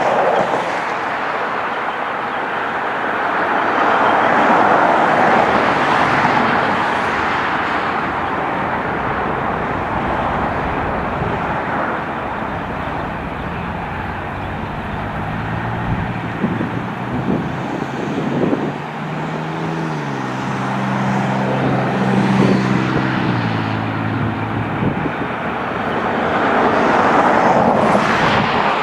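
Jet airliner engine noise, a broad rushing roar that swells twice, with a lower, steady-pitched engine drone stepping in pitch for several seconds in the middle.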